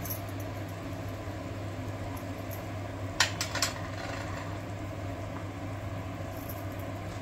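Steady low hum of a pot of fish curry on the stove, with faint simmering. A few quick sharp clicks come a little over three seconds in.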